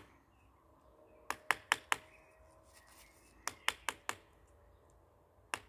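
Small hammer tapping a nail into a walnut graft to pin the scion to the stock: two quick runs of about four light taps, a couple of seconds apart. This is the solid "tok tok" the grafter wants to hear as the nail drives home.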